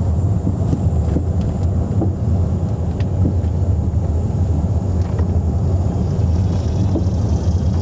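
Road and wind noise inside the cabin of a moving 2001 Volkswagen Jetta GLX with both rear windows lowered: a steady low rumble, with a few faint ticks.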